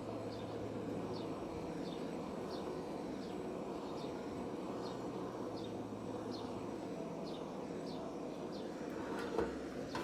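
A small bird chirping over and over, short high falling notes about twice a second, over a steady low hum and background noise, with one sharp knock near the end.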